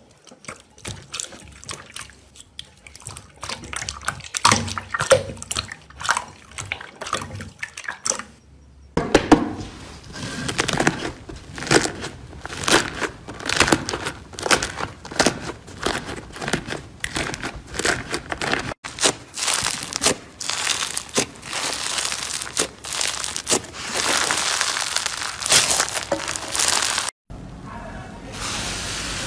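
Slime being squeezed, stretched and peeled by hand: a dense run of sticky clicks, pops and squelches. It comes in several short takes, broken by brief gaps about 9, 19 and 27 seconds in.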